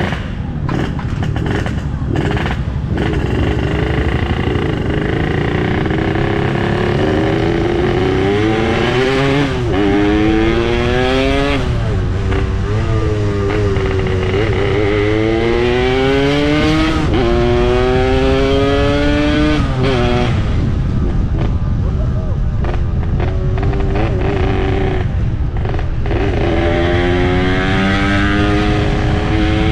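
Yamaha RX-King single-cylinder two-stroke motorcycle engine, set up for a raspy "ngorok" exhaust note, accelerating hard through the gears. The pitch climbs in about five long rising sweeps, dropping sharply at each gear change.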